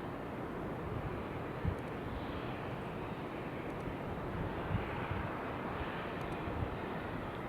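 Steady outdoor wind noise, a constant rushing hiss with low rumbling gusts buffeting the microphone.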